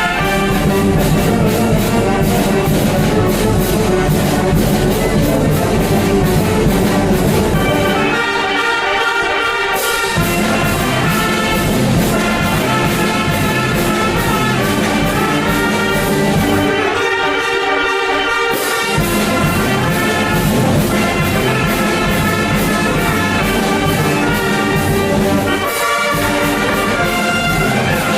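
Brass band playing, trumpets and trombones over a steady beat. Twice, about a third and two thirds of the way through, the bass and drums drop out for about two seconds, leaving only the higher melody.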